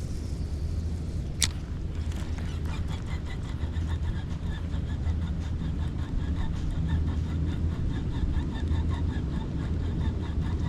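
Wind buffeting the microphone in a steady low rumble, with one sharp click about a second and a half in and a faint, even ticking from about two seconds on.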